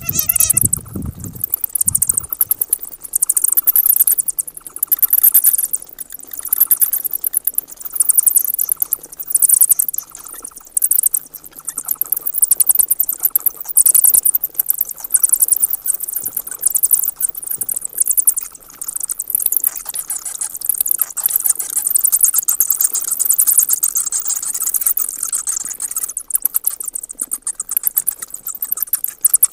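Bats squeaking: rapid, very high-pitched chirps and clicks in bursts with short pauses between them.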